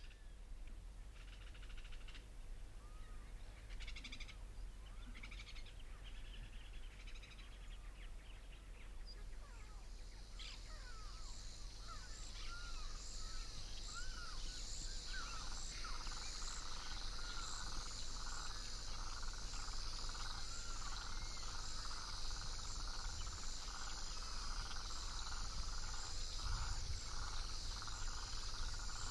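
Evening chorus of frogs and insects: scattered short chirping calls at first, then from about ten seconds a steady high insect trill joined by a pulsing frog chorus that carries on to the end.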